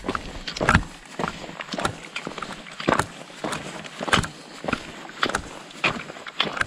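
Footsteps crunching on a loose stony trail at a steady walking pace, about two steps a second, mixed with the clicks of trekking poles striking the ground.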